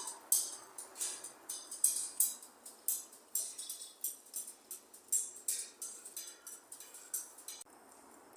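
An irregular run of sharp, bright taps and clinks, about two or three a second, made by striking the hard materials of an empty building as percussion; they stop abruptly near the end.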